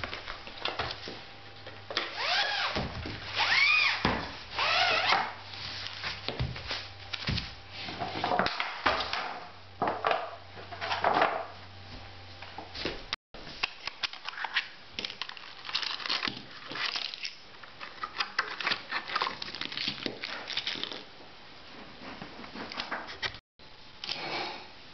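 Clear plastic packaging rustling and crinkling as it is pulled off a new roller blind's tube, with handling clicks and knocks of the tube and fittings. A few squeaky rubs rise and fall in pitch in the first few seconds.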